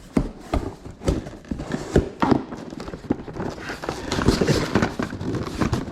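A box holding a glass faceplate being handled and packed away: irregular taps and knocks, getting busier with some rustling about four seconds in.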